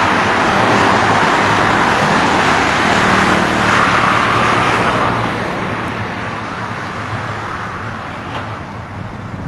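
Road traffic on a highway: passing vehicles' tyre and engine noise, swelling as one passes close about four seconds in, then fading to a quieter steady traffic sound.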